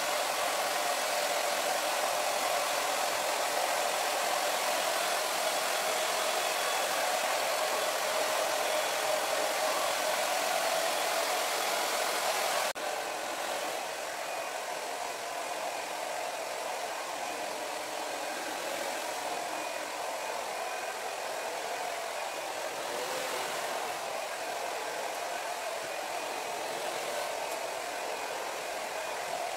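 Hand-held hair dryer running steadily, blowing air with a hum. About thirteen seconds in, its sound drops suddenly to a quieter level and runs on.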